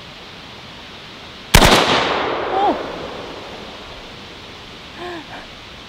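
A single AK-47 rifle shot about a second and a half in, sharp and loud, with a long echoing tail that dies away over a second or so. A brief vocal exclamation follows near the end.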